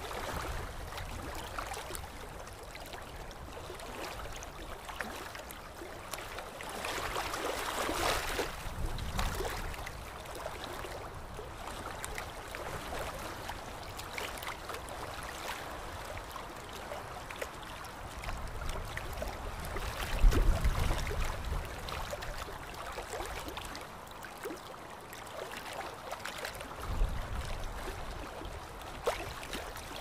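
Water sloshing and lapping with small splashes as a brown bear swims through it. A few low rumbling surges stand out, the loudest about 20 seconds in.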